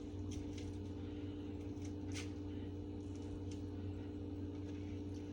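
Quiet eating: a few faint, short clicks and mouth sounds over a steady low hum.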